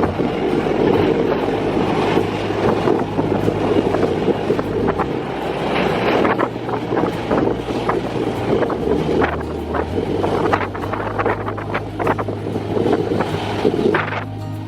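Wind buffeting the microphone, a continuous crackling rumble over the steady noise of aircraft and ground equipment.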